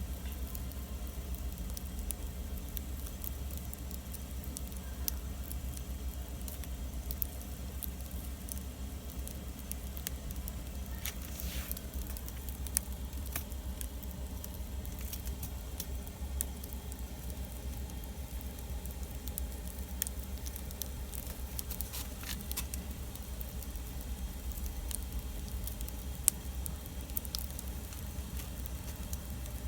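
Wood campfire burning, crackling with scattered sharp pops, a few of them louder than the rest, over a steady low rumble.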